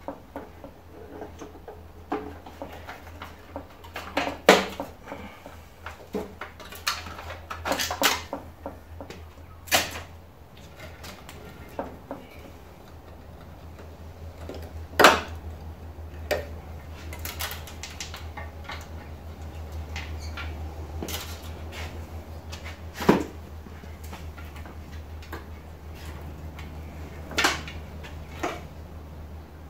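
Scattered clicks, knocks and rattles of hand work on a gutted CRT television: wires and metal fittings being pulled and cut around the picture tube and its plastic case. The sharp knocks come every few seconds, with a steady low hum underneath.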